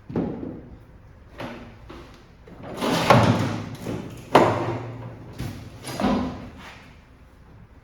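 A string of about six knocks and bangs spread over several seconds, the sharpest about four and a half seconds in: parts being handled and set down in a workshop.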